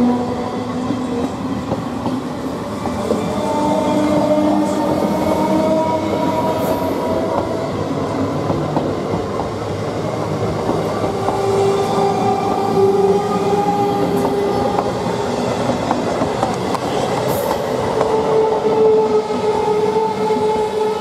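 Howrah–Barddhaman EMU local train running past at speed: a steady rumble with rapid clicking of wheels over the rails, and held tones over it that shift in pitch as the coaches go by.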